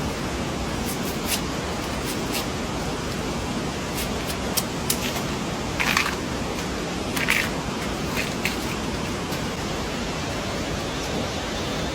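Steady hiss of rain or running water, with scattered sharp taps and clicks, two of them louder about halfway through.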